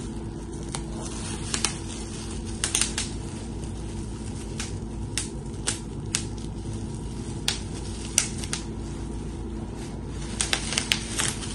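Plastic bubble wrap being handled and pulled apart: sharp crinkles and crackles, scattered singly and in short quick clusters, the busiest cluster near the end. Underneath runs the steady low hum of an air conditioner.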